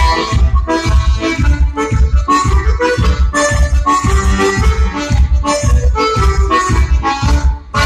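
Live Irish dance music played on accordion over a steady, even bass beat. The music breaks off briefly near the end and starts up again.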